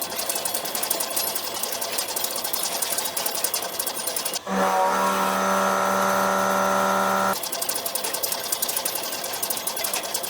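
Industrial machine tool running with a fast, even mechanical clatter. About halfway through, the clatter cuts off suddenly and a steady motor hum plays for about three seconds before the clatter resumes.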